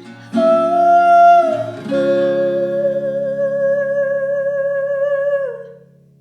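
Background music ending: acoustic guitar chords struck twice under a long held sung note with vibrato, which dips and stops before the music fades out near the end.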